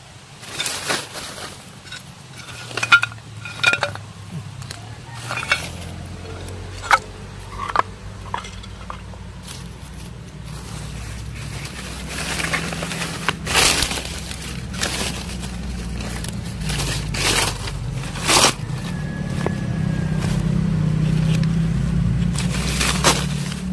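A hand rummaging through leafy undergrowth and dry leaf litter, with repeated crackling and snapping of leaves and twigs. A low steady hum underneath grows louder in the second half.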